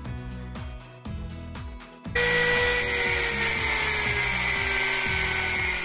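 Closing background music with a repeating low bass pattern. About two seconds in, a loud hissing swell with a slowly falling tone comes in and holds.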